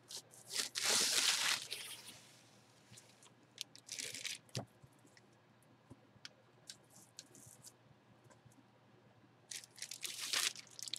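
Packaging noise from a baseball bat being pulled out of its shipping tube: three short bursts of rustling and scraping. The loudest comes about a second in, another around four seconds in with a click, and the last near the end.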